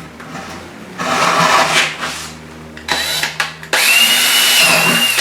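Power drill boring a hole through the side of a bucket for a mounting bolt. It runs briefly about a second in, then again for about a second and a half near the end with a steady whine.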